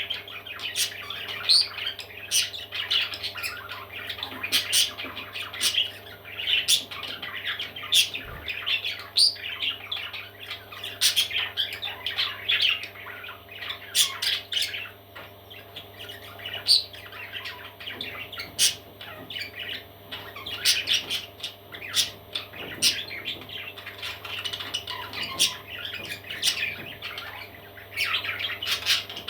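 Parrot chicks squawking, many short overlapping calls one after another, with frequent sharp clicks mixed in.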